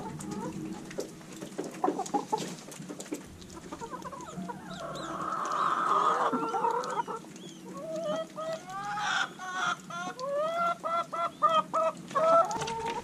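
Hens clucking, sparse at first, then a quick run of repeated clucks over the last few seconds.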